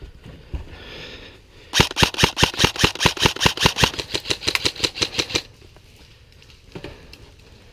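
Electric airsoft rifle, an H&K 416CQB AEG, firing a rapid string of shots, about eight a second, for about three and a half seconds.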